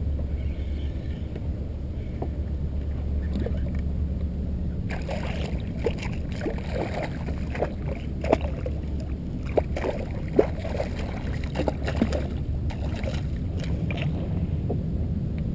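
Water sloshing and lapping against a kayak hull over a steady low rumble of wind on the microphone. From about five seconds in comes a run of sharp splashes, clicks and knocks as a hooked speckled trout thrashes at the surface and is handled at the kayak's side.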